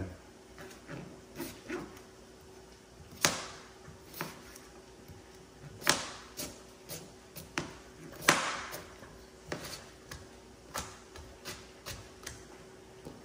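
Chef's knife chopping carrots on a plastic cutting board: irregular knocks of the blade striking the board, three of them much louder than the rest.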